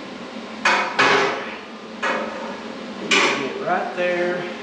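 Steel roll-cage tubing knocking against the cage as the halo tube is worked into place: four sharp metallic knocks, each with a short ring, spaced about a second apart.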